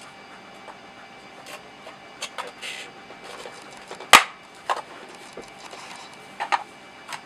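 Scattered clicks and taps of a Logitech Z523 speaker's plastic housing and parts being handled and fitted back together, with one sharp, loud knock about four seconds in.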